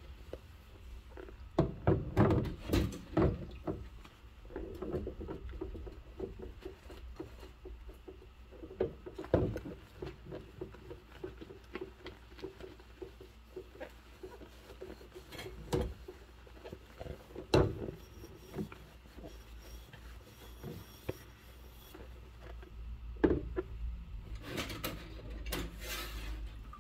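Dishes being hand-washed in a sink full of soapy suds: wet rubbing and swishing as a sponge scrubber and rubber-gloved hands work a bowl under the foam, with several sharp knocks of dishes and utensils against each other and the sink.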